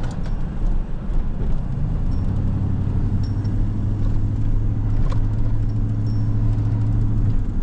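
Low rumble of a motor vehicle on the move, with a steady engine drone that comes in about two seconds in and stops near the end.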